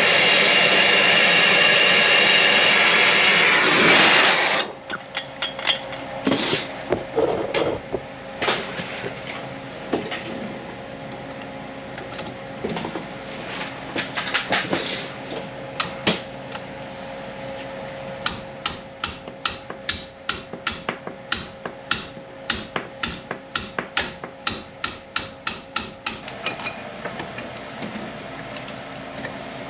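Power tool running on the hub-to-spindle bolts for about four and a half seconds and cutting off, followed by scattered sharp metallic clicks and knocks. These become a regular run of about two to three clicks a second for several seconds near the end.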